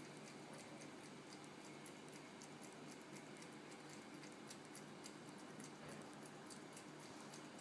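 Cat licking and lapping passion fruit pulp from a halved fruit: faint, quick, irregular wet tongue clicks, several a second.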